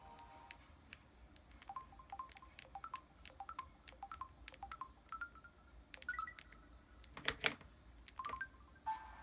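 Samsung Anycall SCH-W200 feature phone's keypad: a run of about fifteen quick key presses, each a sharp click with a short beep, with a louder double click near the end. The next ringtone starts just before the end.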